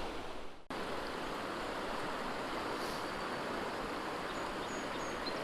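Small stream rushing and burbling over rocks in a steady, even wash of water noise, briefly fading out just before a second in and then cutting back in.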